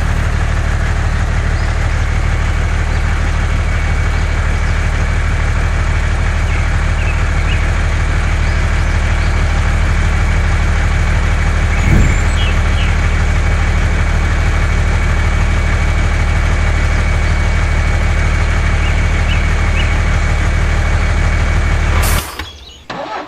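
A motor running at a steady, even hum, with a single knock about halfway through; it cuts off suddenly near the end.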